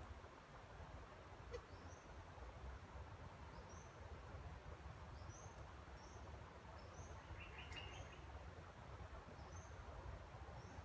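Quiet outdoor ambience with faint, short, high-pitched chirps from a small animal, repeating at irregular intervals. A brief lower trill comes about three-quarters of the way in.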